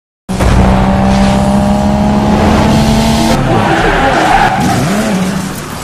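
Car sound effect for a logo intro: a race car engine running with tyres skidding and squealing. It starts suddenly and fades out near the end.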